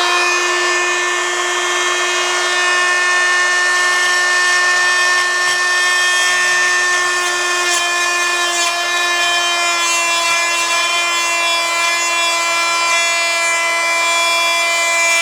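Oscillating multi-tool running steadily at full speed, a high, even whine as it cuts an opening through a shower wall panel; its pitch drops slightly about halfway through.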